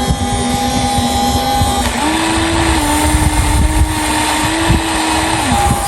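Radio-controlled model construction machinery running, its electric motors giving a steady whine over low rumbling and knocking. The whine steps up in pitch about two seconds in and drops back near the end as the load changes.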